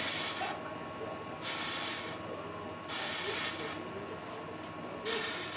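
Hot soldering iron tip sizzling as it is dipped into zinc chloride soldering flux (Baker's soldering fluid): four short hissing sizzles, each under a second, about every second and a half. The fluid is boiling off against the tip and cleaning the dull, oxidised tip that would no longer hold solder.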